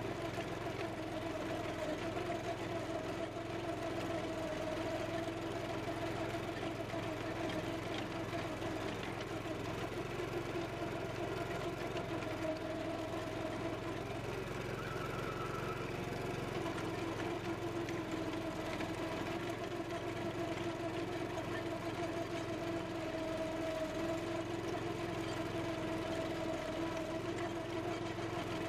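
Walk-behind chain trencher's engine running steadily as the digging chain cuts a trench through lawn soil.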